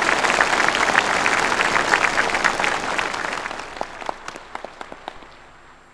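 A large assembly of soldiers applauding, many hands clapping together. The applause fades away over the last couple of seconds, leaving a few scattered claps.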